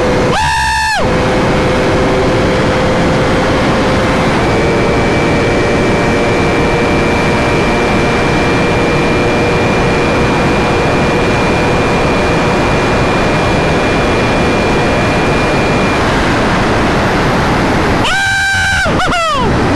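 Wind rushing over a helmet-mounted camera on a sportbike at riding speed, with the engine's steady note underneath. About half a second in and again near the end, the engine briefly changes pitch, rising and then falling.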